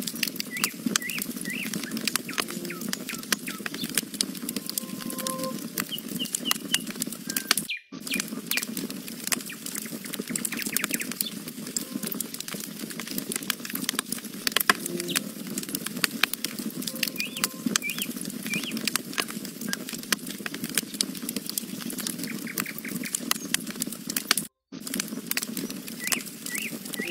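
Wood campfire crackling and popping steadily, with small birds chirping now and then in the background. The sound cuts out for a split second twice.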